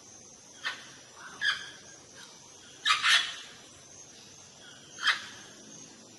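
Parrot giving short, sharp squawks every second or two, about five in all, two of them in quick succession near the middle.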